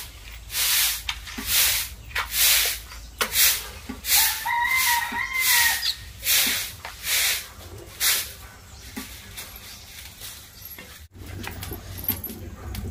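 Matchsticks struck again and again against a matchbox, about a dozen short scrapes over eight seconds, as a wood-fired clay stove is lit. A bird calls briefly about four seconds in.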